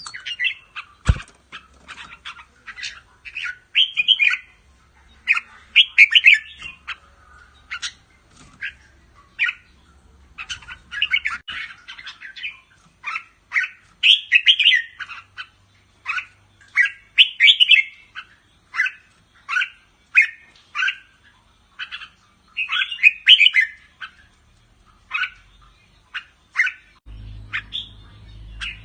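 Red-whiskered bulbul singing: short, bright song phrases repeated every second or two, with rapid chattering calls between them. A single sharp knock about a second in.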